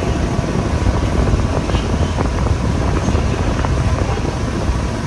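Steady low rumble with a hiss over it, the noise of a moving vehicle.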